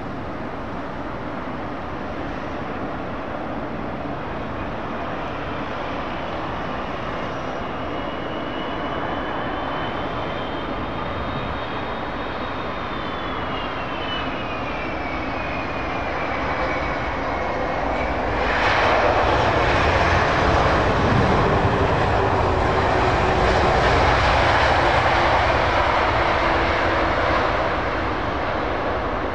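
Airbus A330-223's Pratt & Whitney PW4000-series jet engines landing. A steady jet rush carries a high whine that slides down in pitch. About eighteen seconds in, a sudden, much louder rush of reverse thrust on the rollout lasts about nine seconds before easing off.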